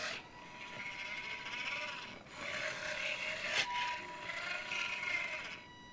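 A 12V DC motor drives 3D-printed plastic bevel gears in a robot arm joint, running with a gritty whirr as the joint swings back and forth. It comes in three runs of about two seconds each, with short breaks where the direction changes.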